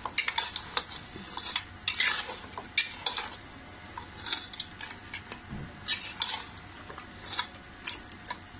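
Metal slotted spatula scraping and stirring mutton trotters in thick yogurt masala in a pressure cooker pot, in irregular strokes. Under it is a light sizzle of the masala frying down (bhunai).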